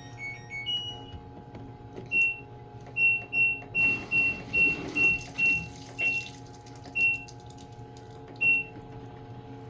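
LG top-loading washing machine's control panel beeping as its buttons are pressed to enter test mode: a short rising chime at the start, then a string of single short beeps, quick at first and more spaced toward the end, over a steady low machine hum.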